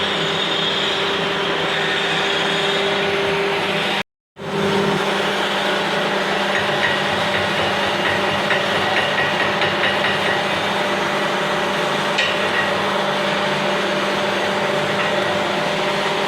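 Steady noise of an arc-welding workshop: a constant grainy hiss with a machine hum underneath, cut off for a moment about four seconds in.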